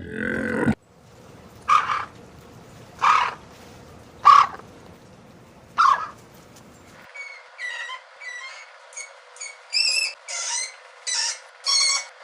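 Animal sound effects: four short calls about a second and a half apart, then a different recording of quick, repeated bird chirps.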